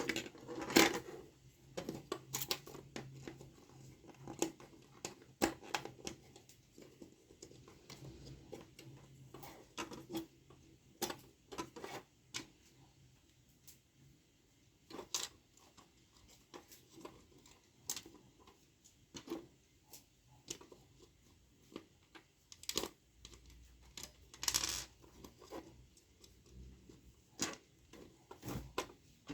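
Hard plastic parts of a toy gun being handled and fitted together: irregular clicks, taps and light knocks, with a short scrape a little before the end.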